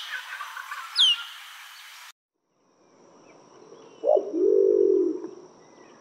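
An Asian glossy starling gives one sharp whistle that falls steeply in pitch about a second in. After a cut, a green imperial pigeon gives one low coo that rises and then falls, about four seconds in.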